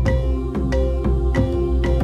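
Background music: soft instrumental with a steady beat and pitched notes played over a sustained low drone.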